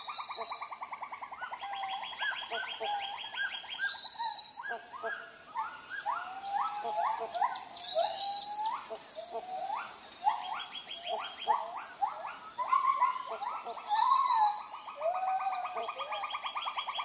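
Tropical rainforest chorus of animal calls: steady rapid pulsed trills, with many short rising whistled calls laid over them, most crowded in the middle.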